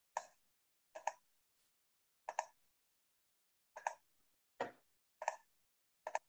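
A series of faint short taps or clicks, about seven, some in quick pairs, irregularly spaced about a second apart, each cut off abruptly into dead silence, as through a video call's noise gate.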